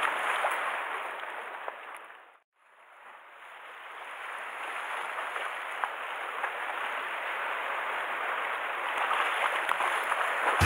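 Sea water washing over the shore rocks, a steady hiss of surf with a few small ticks. It fades out about two seconds in and slowly swells back up over the next few seconds.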